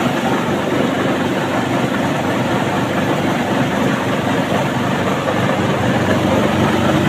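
Rice-husking mill (paddy huller) running steadily while it hulls paddy: a loud, even mechanical noise with a low hum underneath.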